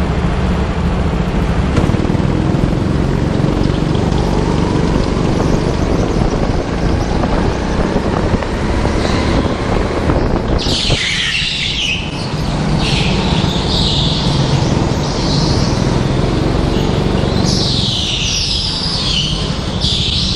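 Go-kart running at speed on an indoor track, heard from on board as a loud, steady running noise. Tyres squeal through corners about halfway through and again near the end.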